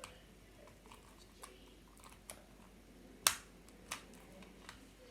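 Light plastic clicks and taps of a Rubik's cube and its loose pieces being handled, with two sharper clicks about three and four seconds in.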